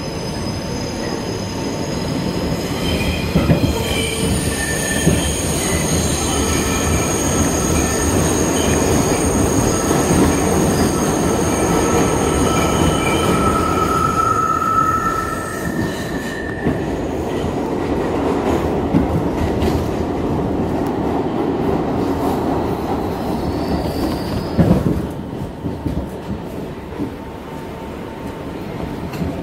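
New York City subway train heard from inside the car, its wheels rumbling steadily on the rails. High-pitched wheel squeal runs through the first half, then gives way to plain rumble with a few sharp clanks near the end.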